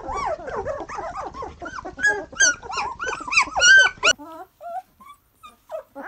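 Several Dutch Shepherd puppies whining and yelping over one another in a constant chorus of wavering cries. About four seconds in the chorus cuts off abruptly, leaving only a few scattered short squeaks.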